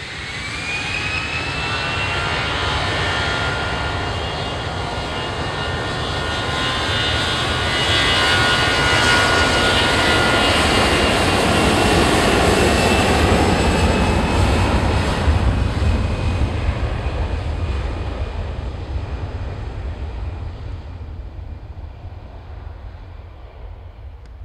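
Airbus A319 twin jet engines at takeoff power: a whine rises to a steady high pitch as the engines spool up, and the jet noise builds to its loudest about halfway through, then fades near the end as the aircraft departs.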